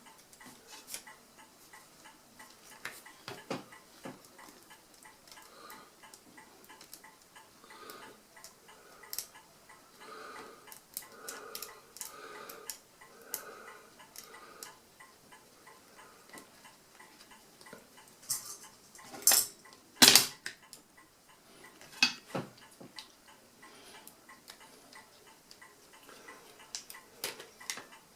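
Small metal clicks and taps of screws and a screwdriver as the mechanical calculator's control register is screwed down, with a few sharper, louder clicks about two-thirds of the way through.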